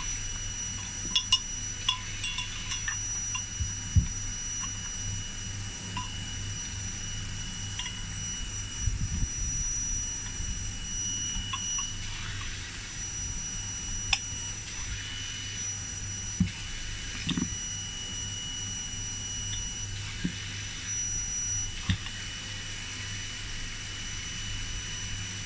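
Scattered light clicks and knocks of small parts being handled and fitted during a sensor installation, over a steady low hum and a faint high-pitched whine.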